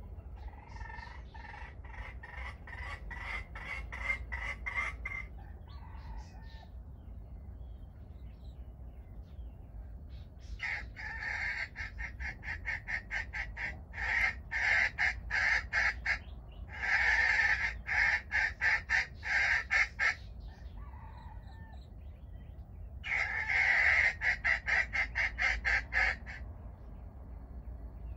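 Jungle fowl clucking in four fast runs of a few seconds each. Each run is a quick string of sharp, evenly spaced notes, and the later runs are louder.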